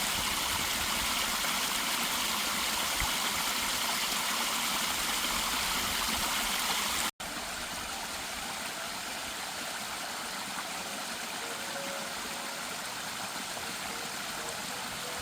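Water flowing steadily in a stream, a continuous rushing and trickling. About seven seconds in it cuts off for an instant and resumes a little quieter.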